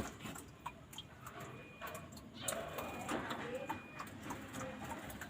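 Small caged birds moving about and calling: scattered ticks and clicks with a few brief thin chirps, and a busier flurry of rustling a little past the middle.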